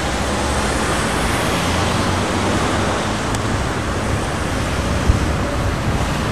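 Steady outdoor city background noise: a traffic-like rumble and hiss with no clear single source, with a short low bump about five seconds in.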